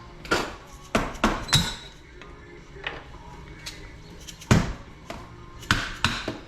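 Hammer blows on metal, about eight irregular strikes with the loudest about four and a half seconds in, typical of driving worn bearings out of a dirt-bike frame's pivots.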